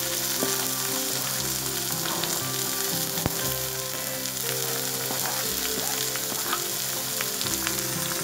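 Chopped taro stems, shallots and green chillies sizzling steadily in hot oil in a kadai as they are sautéed, with a few sharp ticks of a steel spoon against the pan as it stirs.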